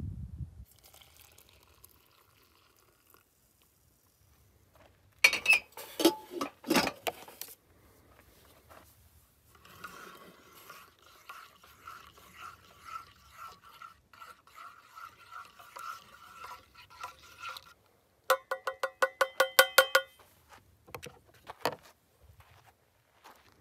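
A metal spoon stirring coffee in a stainless steel camp mug, scraping round and round for about eight seconds, then a quick run of ringing taps on the metal about three-quarters of the way in. Earlier, a few loud metal clanks of cookware.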